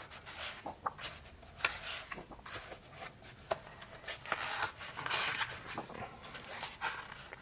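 Paper pages of a booklet being turned and handled: rustling with scattered soft taps and clicks, and a longer rustle about four to five and a half seconds in.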